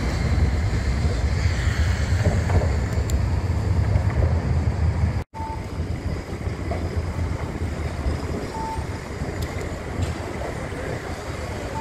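Wind buffeting the microphone over city street noise, with the heaviest low rumble in the first five seconds. After a sudden cut, steadier street noise follows, broken by three short high beeps.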